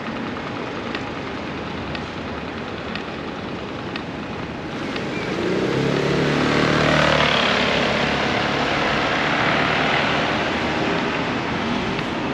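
A motor vehicle passing close by on a city street: its engine note rises about five seconds in, is loudest around seven seconds, then slowly fades into the traffic background.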